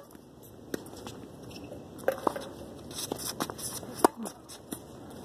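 Tennis rally on a hard court: a string of sharp pops from racket strings hitting the ball and the ball bouncing. The loudest pop comes about four seconds in, from the near player's racket. A few short squeaks from shoes on the court come in between.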